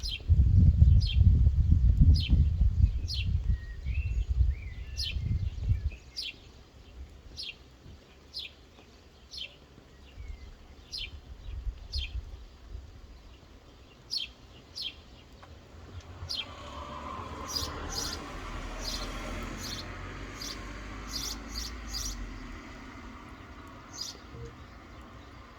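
A songbird repeating short, high, falling chirps about once a second. A loud low rumble fills the first six seconds, and a soft steady rain hiss rises after about sixteen seconds.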